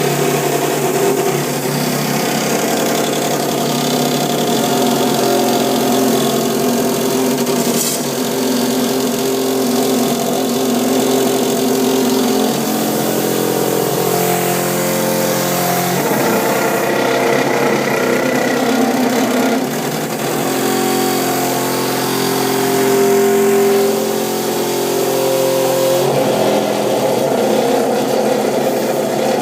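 Toilet water supply lines vibrating violently with a loud, steady droning bang while the tank refills after a flush; the tone jumps to a new pitch several times.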